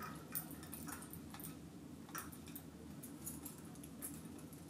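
Metal bag-charm clips and rings clinking lightly against one another as tangled charms are worked free from a display stand: a few scattered faint clicks.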